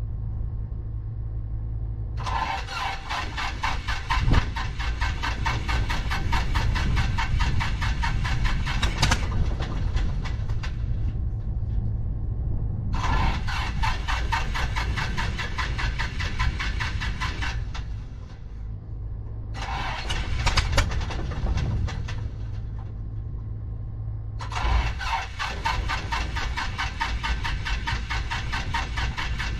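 Starter cranking the four-cylinder Lycoming O-320 engine of a 1974 Piper PA-28-151 Warrior in four separate attempts, each an evenly pulsing churn, without the engine catching: a no-start blamed on a bad magneto. A steady low hum runs underneath.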